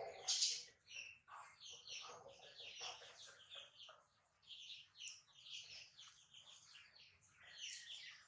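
Birds chirping faintly in the background: many short, high-pitched chirps that overlap and keep going, with a louder chirp about half a second in.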